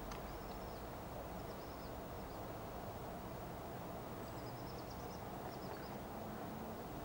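Steady, quiet woodland background with faint, thin high chirps from small birds: one near the start, a few about a second and a half in, and a quick run of them from about four to six seconds in.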